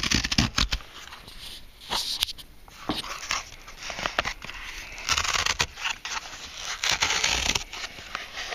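Cardboard shipping box being torn open by hand along its perforated tear strip: irregular ripping and scraping of cardboard, with clicks and knocks from handling the box.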